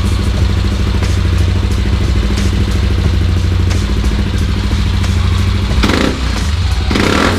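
Yamaha Aerox 155 scooter's single-cylinder engine idling steadily through a JVT V3 aftermarket exhaust with its adjuster set fully open, a bassy note that is deepest at this setting. Two short bursts of noise come near the end.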